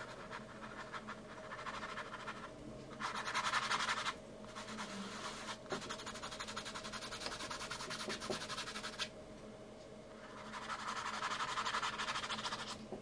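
Paintbrush scrubbing oil paint onto the canvas in quick back-and-forth strokes, a dry scratchy rasp that comes in bouts. It is loudest about three seconds in and again near the end, with short pauses between.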